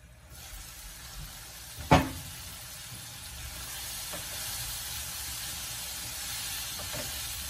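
Potatoes in a spiced masala sizzling steadily in a frying pan as its glass lid comes off, with one sharp knock about two seconds in and a few light taps of a silicone spatula stirring against the pan.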